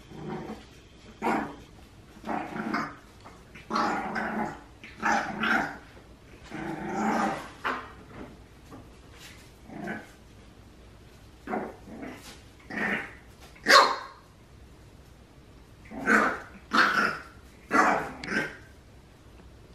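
Lilac merle French bulldog puppy barking and growling in a long run of short yaps, in clusters with brief pauses between them.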